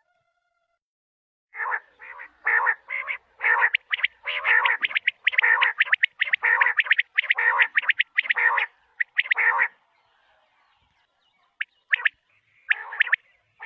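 Quail calling in a long run of harsh, rattling chatter, the notes bunched in quick bursts about two or three a second. The calling pauses briefly about ten seconds in and starts again near the end.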